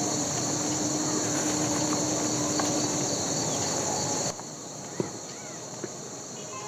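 Outdoor insects buzzing in a steady, high-pitched drone that stops abruptly about four seconds in. After that comes a quieter rural background with a few faint chirps and two light clicks.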